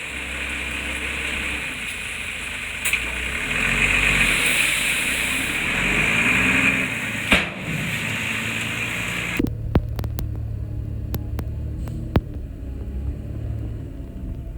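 Diesel engine of heavy earthmoving machinery running, with a sharp knock about seven seconds in. About nine seconds in the sound changes abruptly to a lower, duller engine rumble with several sharp metallic clanks.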